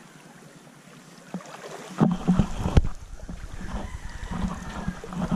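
Shallow seawater sloshing and lapping around a camera held at the water's surface. A few sharp knocks and bumps come about two seconds in, after a faint hiss at the start.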